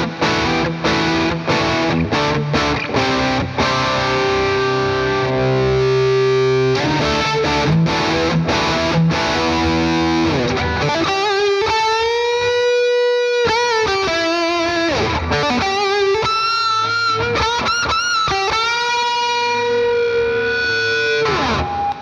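Gibson Les Paul humbucker guitar played through a Victory Sheriff 25 valve amp on its Hot Rod channel, lightly overdriven. For about the first ten seconds it plays strummed chords and riffs. After that come single-note lead lines with bends and wide vibrato, ending on a falling slide.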